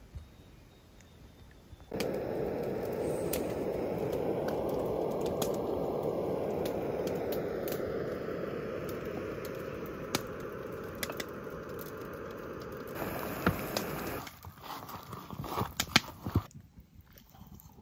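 A cooking flame hisses steadily under a camp pot, with many sharp crackles, starting suddenly about two seconds in and stopping about fourteen seconds in. Then come crinkles and scrapes of a spoon stirring food in a foil meal pouch.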